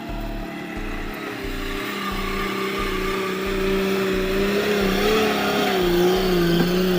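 A vehicle engine running and straining, its pitch rising slightly and then wavering and dropping near the end, over a regular low beat about twice a second that stops about two-thirds of the way through.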